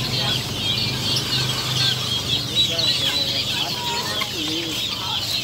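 Many small caged birds chirping without pause, with a chicken clucking now and then underneath.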